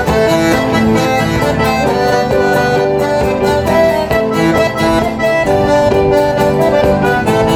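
Live folk band playing a tune led by accordions, with guitar accompaniment.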